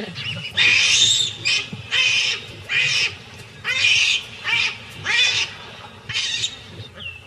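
Baboons screaming: a quick run of about eight loud, shrill screeches, each under half a second, with the first one longer.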